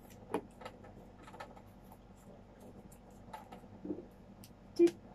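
Pen and paper raffle slips being handled over a plastic box: scattered light clicks and taps, with a louder click just before the end.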